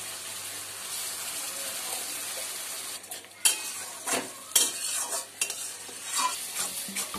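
Spinach purée sizzling in hot oil and masala in a metal kadai. After about three seconds a metal spatula starts stirring it, scraping and knocking against the pan several times.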